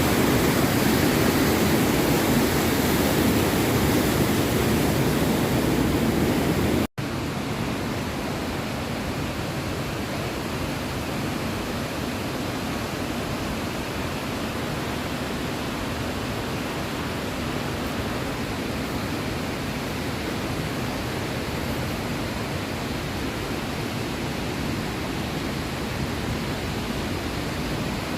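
Waterfall: a steady rush of falling water. It cuts out for an instant about seven seconds in and comes back a little quieter.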